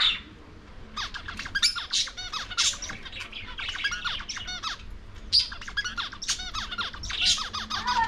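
Budgerigars chattering: a fast, continuous run of short chirps and squawks that starts about a second in.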